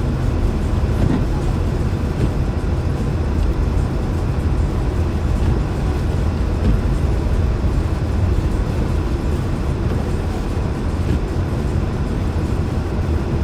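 Steady low rumble of a car's engine and tyres heard from inside the cabin while driving on a snow-covered highway.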